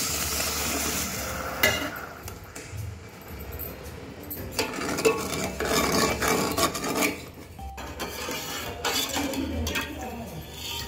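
Water pouring onto sugar in a stainless steel pot for about the first second and a half. A steel ladle then stirs the sugar into the water, scraping and clinking against the pot, loudest around the middle.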